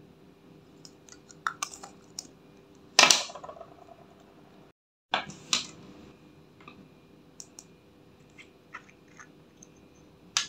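Sharp clicks and taps from handling a plastic lipstick tube and setting pieces of red lipstick into a glass dish of clear slime. The loudest knock comes about three seconds in and rings briefly, with more knocks just after a short dropout near the middle.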